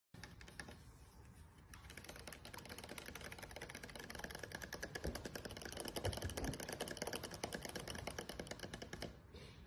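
Fast run of sharp clicks, many a second, growing louder over several seconds, from a white-bellied caique parrot.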